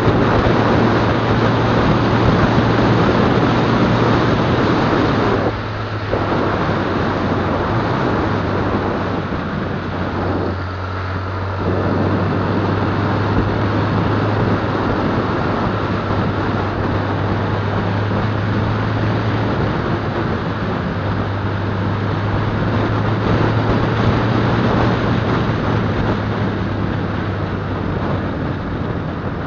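Motorcycle engine running at a steady cruise, heard from the bike itself, under a constant rush of wind and road noise. The sound briefly drops twice, about six and eleven seconds in.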